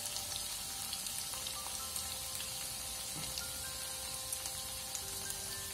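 Rava and potato snack pieces shallow-frying in hot oil in a pan: a steady sizzle with light crackles. Faint sustained background music notes sound over it.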